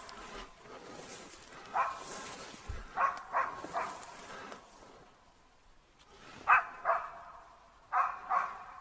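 Hunting laika barking in short bouts of one to three barks, about eight barks in all. The loudest pair comes about two-thirds of the way through.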